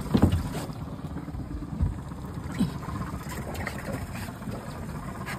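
Boat's outboard motor running steadily at idle over water and wind noise, with a short sharp sound just after the start and a low knock about two seconds in.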